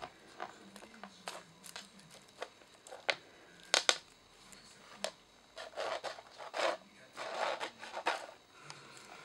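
Siberian kittens playing with a feather wand toy: scattered taps and scrabbling of paws and claws on a wooden floor, with rustling of the feathers. The loudest sharp clicks come about four seconds in, followed by a run of scratchy rustles over the next few seconds.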